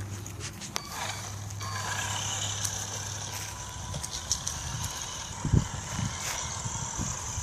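Toy remote-control truck being driven: its small electric drive motor whines steadily, with scattered clicks and a few low thumps from the truck running over the ground.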